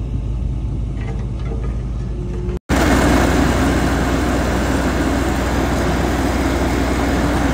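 Diesel engine of a Ditch Witch RT115 vibratory plow running steadily. About two and a half seconds in it cuts abruptly to a louder, closer engine sound with a strong hiss, the engine working hard enough that its turbocharger glows red.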